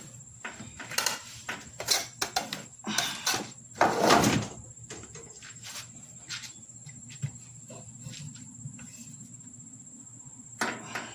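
Steel pry bar levering a riding-mower tire bead back over the wheel rim: a run of knocks, clicks and scrapes, loudest about four seconds in, then mostly quiet with a few taps.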